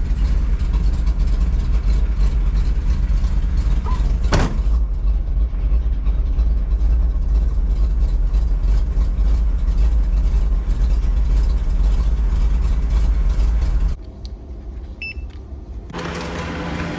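Vehicle driving, a steady heavy low rumble with one sharp click about four seconds in. The rumble cuts off suddenly about fourteen seconds in, two short high beeps follow, and near the end a steady engine hum at idle begins.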